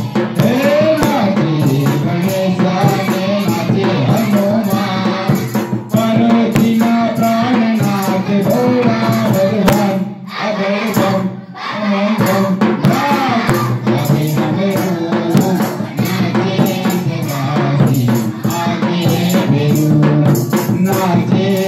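A man sings a Hindu devotional bhajan into a microphone, amplified through a PA. Underneath are sustained accompanying tones and jingling rattle or tambourine percussion keeping a steady beat. The singing drops out briefly about ten seconds in.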